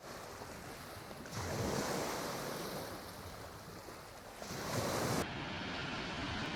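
Ocean surf: waves washing onto a beach as a steady rushing, swelling about a second in and again past four seconds, with some wind.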